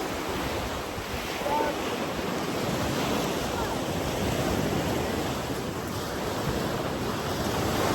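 Rough sea surf washing in steadily, with wind gusting across the microphone.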